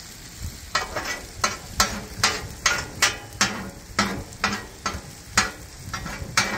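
Metal spatula scraping against a flat-top griddle in short, repeated strokes, about two a second, as it pushes the edges of setting egg into shape, over a steady sizzle of the eggs frying in ghee.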